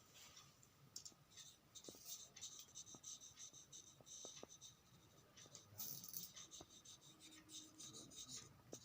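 Faint, uneven scratching of a paintbrush stroking watercolour onto hard cardboard, with a few small ticks.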